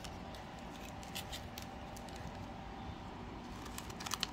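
Glossy trading cards being handled: a few faint clicks about a second in and a small cluster near the end, over a steady low hum.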